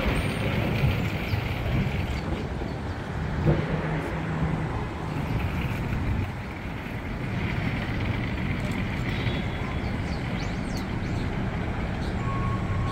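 Street traffic ambience: a steady mix of vehicle noise and general city sound.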